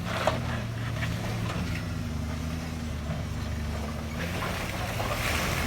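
Jeep Grand Cherokee engine running steadily under load on a muddy off-road climb, with a few short knocks.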